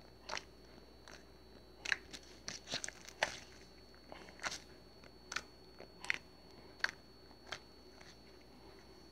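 About a dozen short, sharp crunches and clicks at irregular intervals, bunched in the first half and thinning out near the end, over a faint steady hum.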